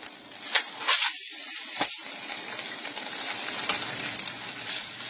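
Butter and cream cheese sizzling in a nonstick frying pan while a wooden spatula pushes them around, with a few short scrapes. The sizzle is brightest about a second in.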